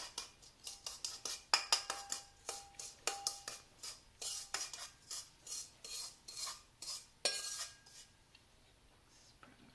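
A metal spoon scraping and knocking against the inside of a stainless steel mixing bowl, spooning crumbly pecan topping out over a cake. Some knocks leave a brief ringing from the bowl. The scraping stops about eight seconds in.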